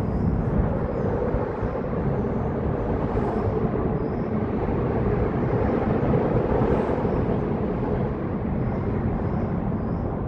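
Freight train passing, a steady loud rumble with no horn.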